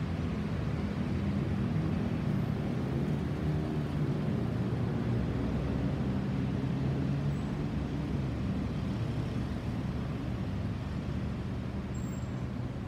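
Low, steady rumble of a Boeing 737-800's CFM56-7B jet engines as the airliner moves away after passing overhead, slowly fading over the last few seconds.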